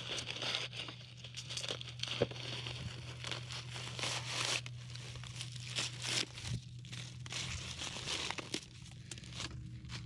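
Dry husks being ripped back by hand from an ear of field corn that is drying down in the field: a run of irregular crackles and tearing rips. A steady low hum runs underneath.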